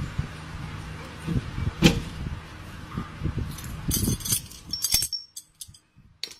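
Steel leaf-spring suspension hardware being handled and fitted at a van's rear axle: metal knocks and clinks, with one sharp knock about two seconds in and a bright jingle of loose metal parts around four seconds in, then only a few light clicks.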